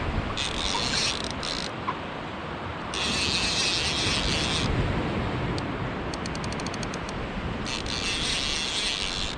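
Fishing reel with its drag giving line in several bursts of a second or two as a hooked shark pulls, with a quick run of ratchet clicks, about ten a second, in the middle.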